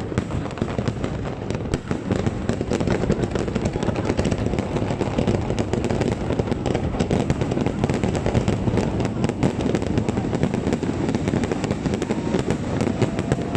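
Aerial fireworks display with many shells bursting at once: a dense, continuous crackling and popping of cracks and bangs with no pause.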